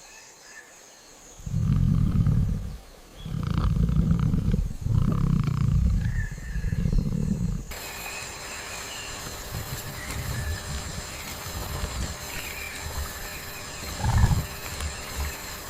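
Deep animal growls, four in a row, each about a second long, of the kind a big cat makes. They are followed by a sudden change to steady jungle ambience with a constant high, insect-like whine and one more short low growl near the end.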